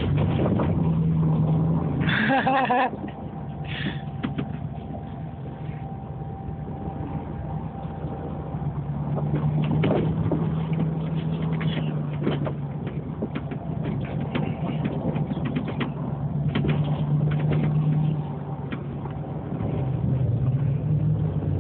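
Dodge Dakota pickup's engine running under load while doing donuts in snow, its note surging and easing, louder through the middle and dropping back near the end, with scattered knocks and clicks.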